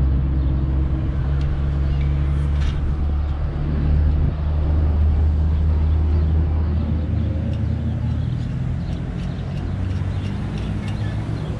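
A motor vehicle engine idling, a steady low drone that holds at an even level throughout.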